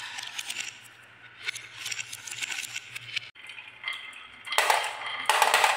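Glass marbles rolling and clinking against a wooden spiral track and each other. About three seconds in it cuts to a stream of glass marbles rattling down a wavy wooden track, which gets louder for the last second or so.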